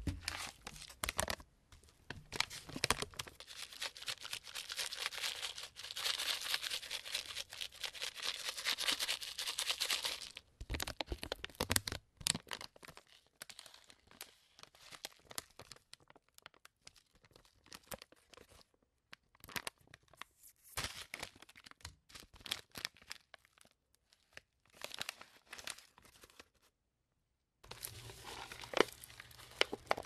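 Fingernails scratching and tapping on a crinkly plastic candy packet close to the microphone: a dense run of crackling scratches, then sparser taps and crinkles. The sound stops briefly near the end and scratching starts again.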